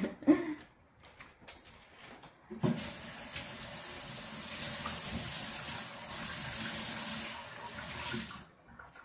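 Water running from a tap for about six seconds, turned on abruptly a couple of seconds in and shut off near the end, after a few light clicks.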